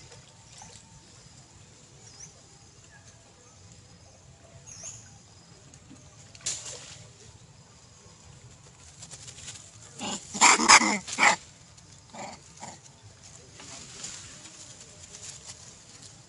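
Long-tailed macaque giving a loud, wavering call about ten seconds in that lasts about a second, followed by a shorter call a moment later.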